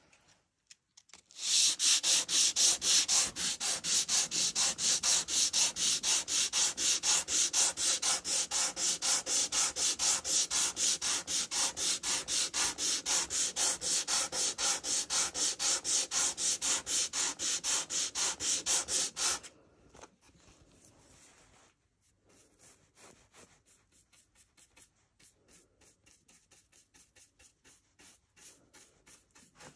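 Sandpaper on a small block rubbed by hand over a wood veneer inlay, in quick, even back-and-forth strokes. The strokes stop about 19 seconds in, and fainter, lighter strokes follow.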